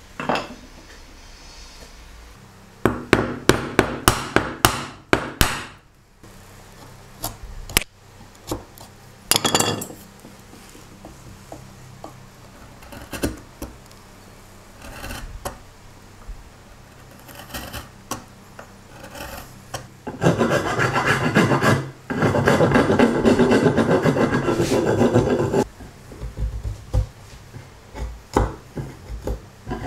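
Hand tools working wood: chisel cuts on a wooden joint, with a quick run of sharp knocks a few seconds in and about five seconds of steady rasping, rubbing strokes past the middle.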